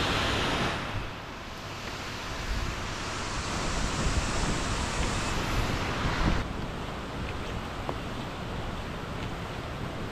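Steady outdoor rushing noise with no distinct events, changing abruptly in level about a second in and again after six seconds.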